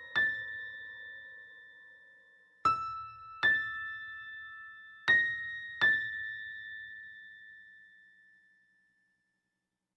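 Music: five slow, bell-like keyboard notes, struck singly and in pairs, each ringing out with a long decay. The last one fades away to silence near the end.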